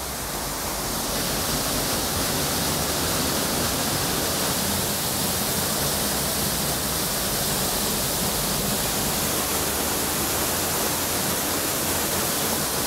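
Waterfall and mountain stream rushing over rocks: a steady, loud roar of falling water that swells slightly about a second in and then holds level.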